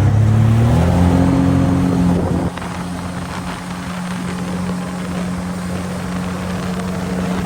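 Sea-Doo jet ski engine under throttle, its revs climbing over the first two seconds. About two and a half seconds in it eases off and holds one steady note over a constant hiss.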